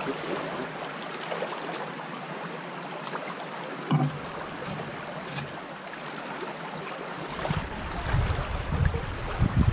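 Small creek running steadily over a shallow, rocky bed. There is a single knock about four seconds in, and a louder low rumble builds near the end.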